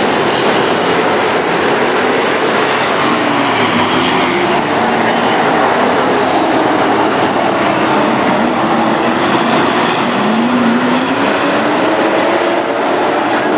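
Several dirt-track Sportsman race car engines running hard around the oval, loud and continuous, their pitches rising and falling as the cars pass and accelerate out of the turns.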